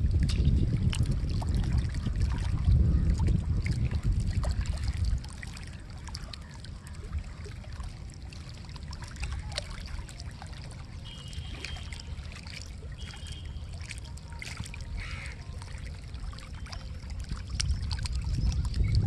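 Wind buffeting the microphone, strong for the first five seconds and rising again near the end, over small splashes of lake water lapping at a rocky shore.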